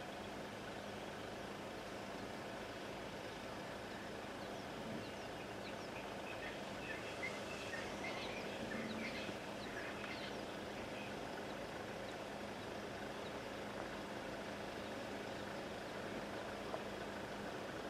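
Steady outdoor background hum, as of vehicles on a game-viewing road, with a flurry of small bird chirps from about six to ten seconds in.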